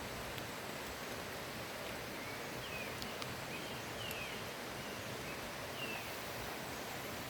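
Steady rush of a forest river with light drizzle falling, and a bird giving a few short, faint, downward-sliding chirps in the middle.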